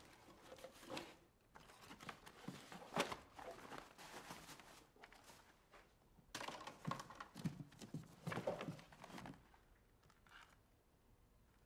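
Irregular rustling and scraping with a few light knocks, the sound of things being handled, busiest about halfway through and dying down near the end.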